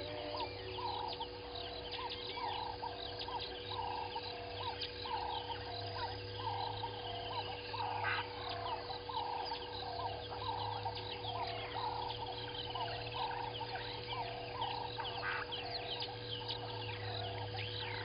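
Outdoor bird chorus: a steady run of short clucking notes, about two or three a second, under faint high chirps and whistles of small birds, with a constant low hum beneath.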